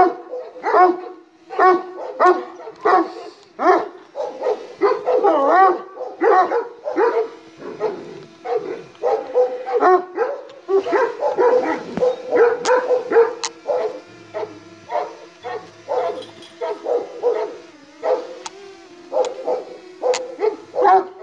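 A Kangal (Anatolian shepherd dog) barking repeatedly and aggressively at a drone hovering overhead, over the drone's steady propeller hum.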